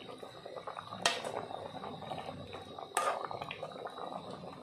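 Metal ladle stirring soup in an aluminium pot, the broth sloshing, with two sharp clinks of the ladle against the pot, about a second in and again near three seconds.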